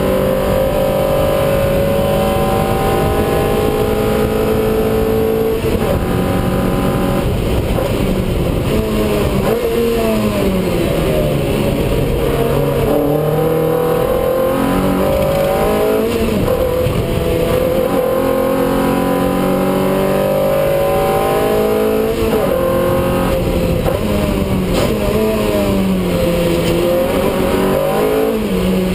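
Lotus race car's engine heard from inside the cockpit under hard acceleration, its pitch climbing through the gears with breaks at each upshift. About ten seconds in it falls in steps under braking and downshifts, climbs again on a long pull, and drops once more near the end for the next corner.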